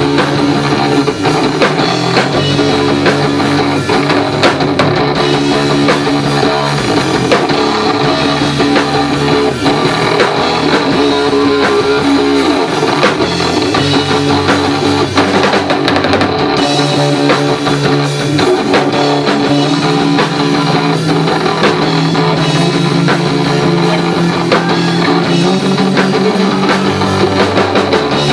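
Live heavy rock band playing an instrumental passage: distorted electric guitar riffing over bass and a drum kit, loud and without vocals.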